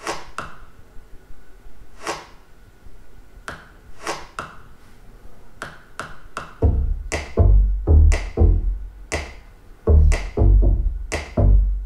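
Music played back through a small 3D-printed 5.1 speaker system, with Dayton Audio 2-inch full-range satellites and a Tang Band 6.5-inch subwoofer: a sparse electronic track of sharp percussive hits. Deep bass hits from the subwoofer come in about halfway through and are the loudest part.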